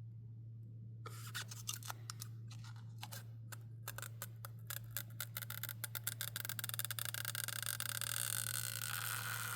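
Adhesive strip or protective film being peeled away slowly. Scattered crackles start about a second in and grow denser into a continuous crackling peel, over a steady low electrical hum.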